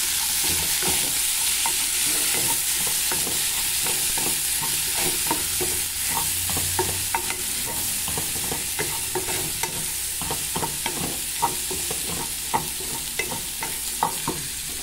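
Chopped linguiça sausage and onion sizzling in a metal pot, stirred with a wooden spoon that scrapes and knocks against the pot, the knocks coming more often in the second half.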